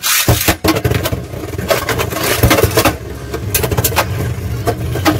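Two Beyblade Burst tops, Helios Volcano and Brave Valkyrie, spinning in a plastic Beystadium: their tips scrape and whir across the floor while they clash with many sharp clicks and knocks. The sound starts abruptly, as the tops hit the stadium.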